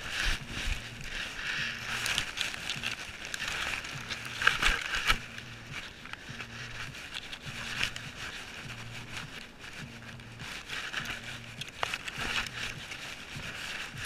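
Grass blades brushing and crackling against a GoPro camera strapped to a dog as it noses through the grass, with scattered clicks. A faint low pulse repeats about once a second underneath.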